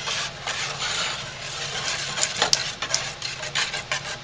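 A stainless steel wire whisk beating thick raw soap batter of lye and oils in a large roaster pot. It makes a continuous wet swishing with scattered sharp clicks of the wires against the pot. This is the hand-blending of hot-process soap batter to an even emulsion.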